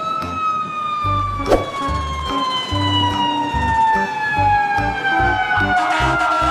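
Emergency vehicle siren sounding a slow wail, its pitch falling steadily and smoothly, with a brief click about a second and a half in.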